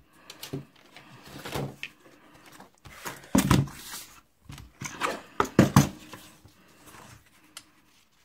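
Patterned paper being handled and trimmed on a paper trimmer with a sliding blade: paper rustling and short knocks of the trimmer's rail and blade. The loudest bursts come about three and a half and five and a half seconds in.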